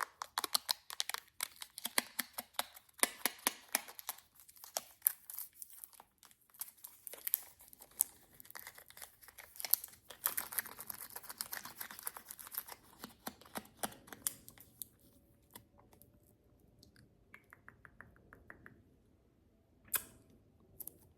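Close handling of a Stitch slime figure toy and its plastic packaging: dense crinkling and clicking for about fourteen seconds, then sparser, quieter clicks.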